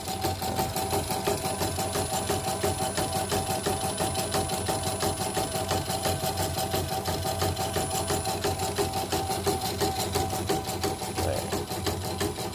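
A CNY E900 portable embroidery machine stitching a test design: a rapid, even rhythm of needle strokes over the steady hum of its motor. It is running smoothly after repair and resetting.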